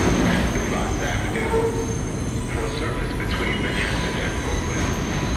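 R142A subway train pulling away into the tunnel, its wheels rumbling steadily on the rails and slowly fading. A brief wheel squeal comes about a second and a half in.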